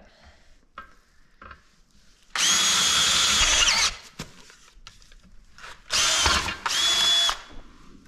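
Cordless Makita drill boring out a bolt hole in a steel seat frame, run in three bursts: one about a second and a half long, then two short ones close together near the end, each with a steady high whine.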